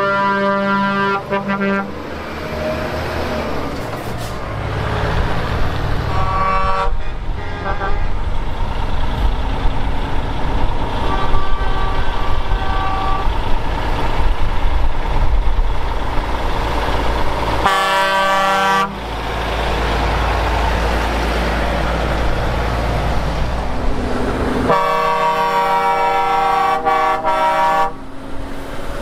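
Show trucks driving past one after another with diesel engines rumbling, sounding their air horns: short toots about seven seconds in, a blast of about a second in the middle, and a long blast of about three seconds near the end.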